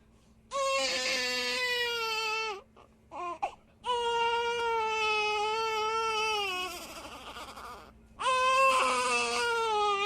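Infant crying in three long wails, each held for two to three seconds with a short catch of breath between the first two.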